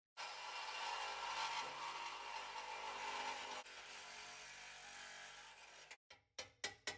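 Milwaukee Hackzall cordless reciprocating saw cutting the steel of an off-road bumper. It runs steadily, gets somewhat quieter a little past halfway, and stops about six seconds in. Just after, rapid hammer blows on a chisel begin, about four a second.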